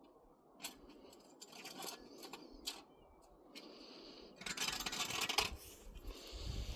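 Irregular scraping and rustling with short clicks, and a louder rasping burst about four and a half seconds in.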